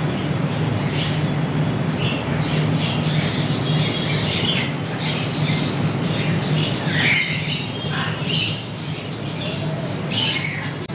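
Macaw parrots squawking, many short harsh calls in quick succession, some dropping in pitch, over a steady low hum that fades about two thirds of the way through.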